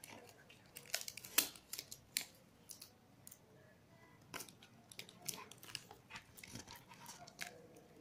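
Hands handling a cardboard box covered in paper and metallic foil: irregular sharp clicks, taps and rustles as flaps are pressed and folded, the loudest snap about one and a half seconds in.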